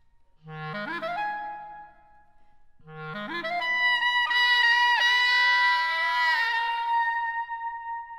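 Solo clarinet playing two phrases, each leaping up from a low note to a held high note, with a short pause about two seconds in. The second phrase climbs through quick notes and ends on a long high note that wavers.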